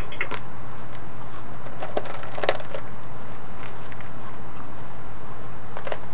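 Background noise of a crowded mission control room: a steady hiss with a low hum under it and a few scattered sharp clicks.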